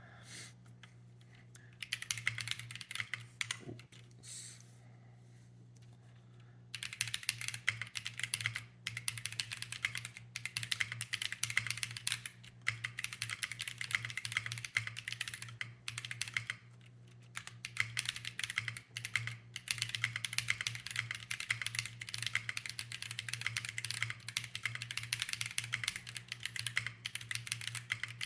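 Fast typing on a JRIS75 custom 75% mechanical keyboard with Corsa tactile switches in an aluminum plate, with no foam in the case. A short burst of keystrokes comes about two seconds in, then a pause, then near-continuous typing from about seven seconds in, over a faint steady low hum.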